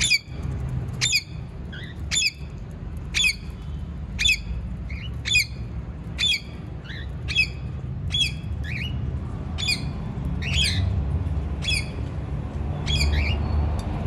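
Pet parrots squawking: a shrill, sharp call about once a second, with softer chirps in between.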